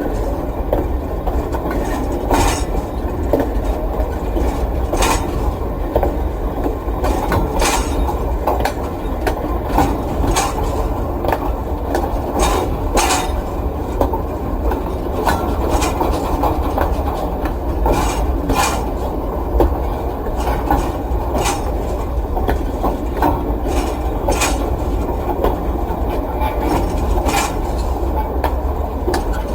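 Freight train rolling past: a continuous low rumble of wagons on the rails, with irregular sharp clanks and clicks of wheels over rail joints and metal couplings.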